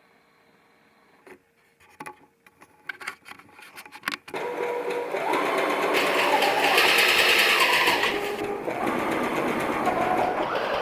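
A few light clicks and knocks, then from about four seconds in a household sewing machine runs continuously, its motor speed rising and falling as it stitches.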